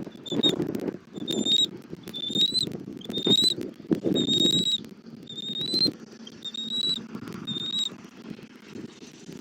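Bald eagle calling at the nest: a series of about a dozen short, thin, high-pitched piping notes, roughly two a second, most with a slight upward flick at the end, stopping near the end. A low rumbling noise with scattered clicks runs underneath.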